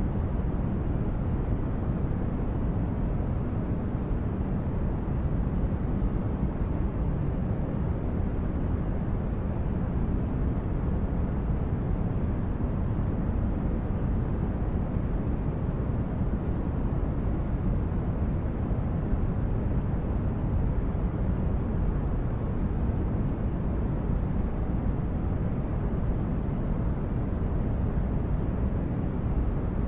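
Sci-fi spaceship ambience: a steady, even, brown-noise-like low rumble, with no tones, changes or separate events.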